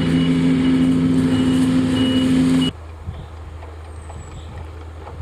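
A small municipal utility vehicle running with a loud steady drone and faint, short high beeps repeating every half second or so. It cuts off about two and a half seconds in to the quieter, low steady engine hum of a tractor pulling a slurry tanker, spreading slurry across a field.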